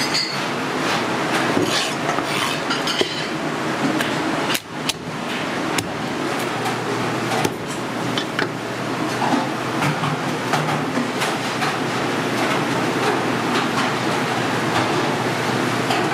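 A cleaver chopping king crab legs on a wooden chopping block, in irregular sharp knocks over a steady kitchen roar.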